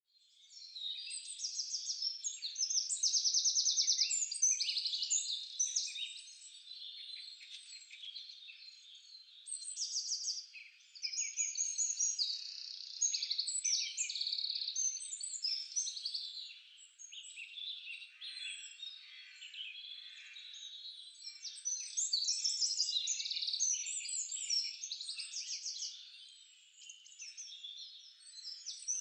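A chorus of songbirds: many birds at once chirping, trilling and whistling in overlapping high-pitched phrases, some as fast repeated notes. It swells and fades in waves, dipping quieter around the middle and near the end.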